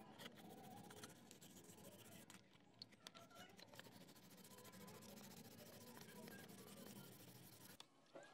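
Sandpaper rubbed by hand across a plastic phone back cover: a faint, steady scratchy rasp that stops abruptly shortly before the end.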